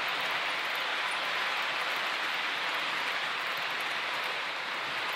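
Model freight trains' wheels rolling along the layout's track, a steady even rushing hiss.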